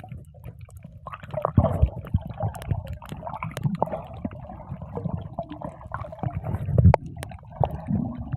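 Water sloshing and splashing, with irregular knocks and low rumbling handling noise.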